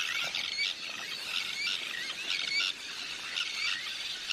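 A colony of sandwich terns calling: many harsh, grating calls overlapping, repeating roughly once a second.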